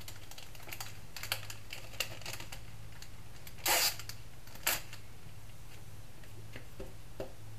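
Clear cellophane bag crinkling and rustling as a small bracelet is slipped into it, with scattered light clicks and two louder crackles a little past the middle.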